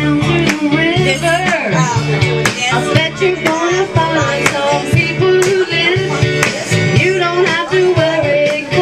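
Music with singing and guitar over a steady beat of about two strokes a second.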